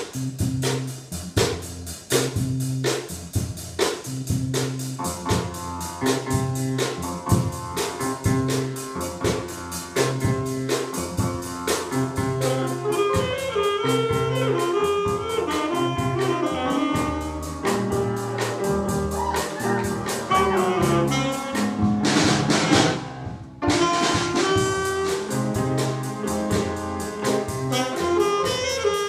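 Small jazz band playing live: electric bass guitar, drum kit, piano and saxophone over a steady beat and repeating bass line. About three-quarters of the way through, the band swells loudly and cuts off for an instant before coming back in.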